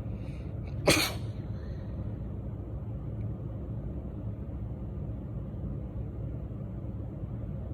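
A woman's single sharp, barky allergy sneeze about a second in, over a steady low rumble.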